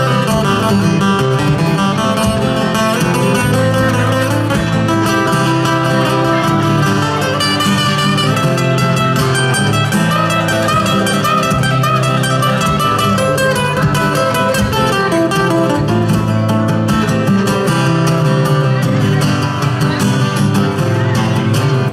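Acoustic guitar played live without singing: a continuous strummed and picked instrumental passage that stops right at the end.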